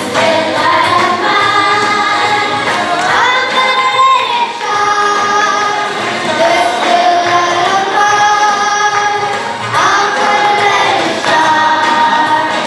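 A group singing a church song with musical backing, holding long notes that slide up into pitch a few times.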